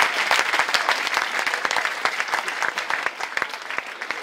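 Audience applauding, a dense patter of many hands clapping that gradually dies down over the few seconds.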